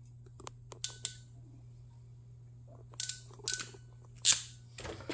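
Sharp mechanical clicks of a ratcheting crimp tool working GT 150 terminals onto wires: two clicks about a second in, a quick cluster around three seconds, and the loudest snap a little after four seconds.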